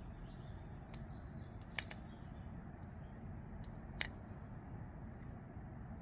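A handful of sharp, small metallic clicks a second or so apart: a folding knife and small Torx drivers being handled on a desk, parts tapping together.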